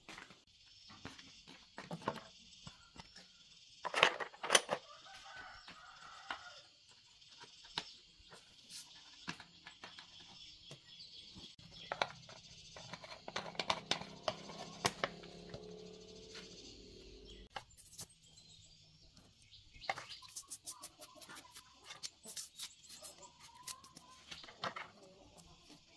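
Chickens clucking in the background while metal engine parts and hand tools clink and tap, with sharp knocks loudest about four seconds in. Liquid is poured from a plastic bottle, and a small engine part is scrubbed with a brush in a rapid run of scratchy clicks. A steady high hiss runs underneath.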